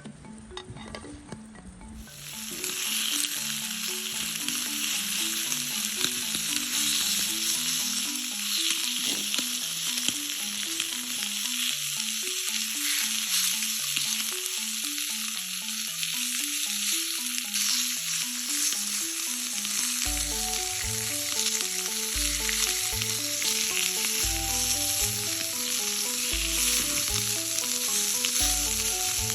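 Food sizzling and frying in a pan, a steady hiss that starts about two seconds in. Background music with a simple melody plays underneath, and a bass line comes in about two-thirds of the way through.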